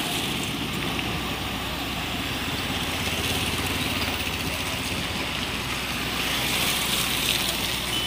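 Steady roadside traffic and machinery noise: vehicle engines running with a continuous low hum under an even rush of noise.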